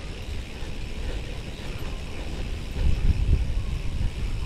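Rumbling wind noise on the microphone and tyre noise from a bicycle coasting fast over dry grass, towed by a dog with no pedalling; it grows a little louder about three seconds in.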